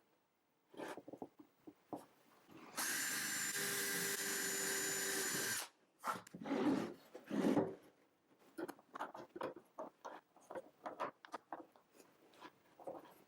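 Power drill with a self-centering bit drilling a pilot hole for a piano hinge, running steadily for about three seconds starting about three seconds in. Short scattered knocks and clicks of handling follow.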